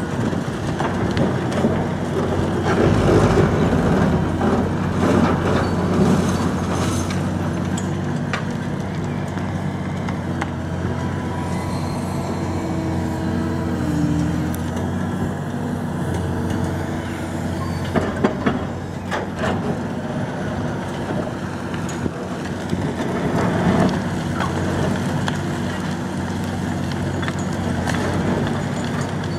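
Liebherr R954C high-reach demolition excavator's diesel engine running steadily under hydraulic load while its crusher bites into a concrete building, with concrete crunching and debris falling. A few sharp cracks come about two-thirds of the way through.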